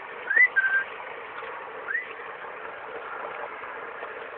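Two short rising whistles about a second and a half apart, the first levelling off into a brief held note, over a steady background rumble.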